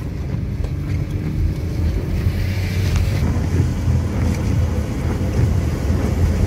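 Steady low rumble of a vehicle driving on a wet road, heard from inside the cabin, with a fainter hiss of tyres on the wet pavement.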